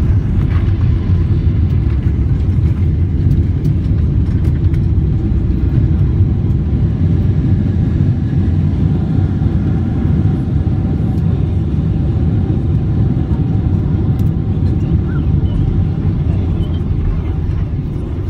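Steady low rumble inside a Boeing 777's passenger cabin during its landing, easing off slightly near the end.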